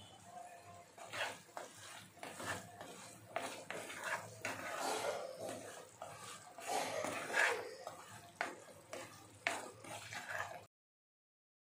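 Wooden spatula stirring and scraping stuffed brinjals, onions and chillies in oil in a non-stick kadai: irregular scrapes and soft knocks against the pan. The sound cuts off suddenly near the end.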